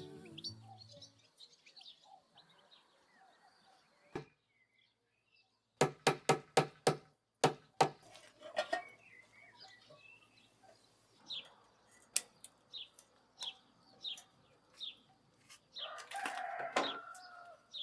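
Birds calling outdoors: a series of short, high, falling chirps about twice a second, and a louder call near the end. About six sharp clicks come in quick succession partway through.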